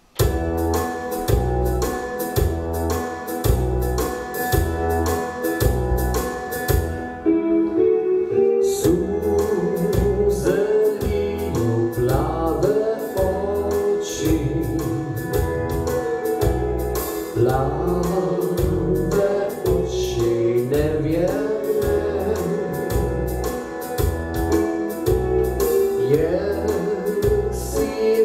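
Yamaha arranger keyboard playing a backing track with a steady bass beat, starting suddenly, with a short break about seven seconds in. A man sings over it through a microphone and PA speakers from about ten seconds in.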